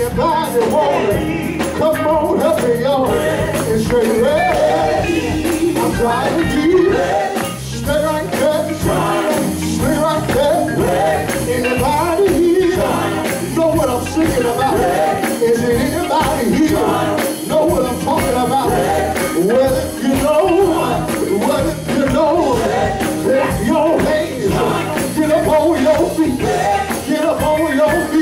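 Live gospel song: male vocalists singing through handheld microphones over a band of drum kit, electric bass and keyboard.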